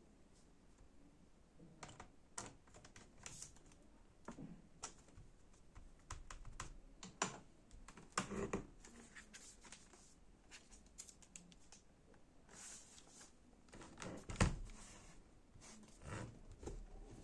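Scattered light clicks and taps of a small screwdriver, screws and plastic or metal parts being handled while a laptop is put back together, with one louder knock about fourteen seconds in.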